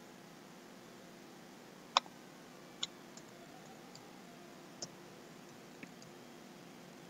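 A few scattered clicks of a computer keyboard and mouse over a faint steady hiss. The loudest click comes about two seconds in, followed by five lighter keystroke clicks spread over the next four seconds.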